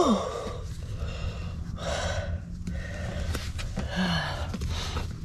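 A woman breathing hard with effort while squeezing a tool with all her strength: a short falling strained vocal sound at the start, then heavy breaths about every two seconds.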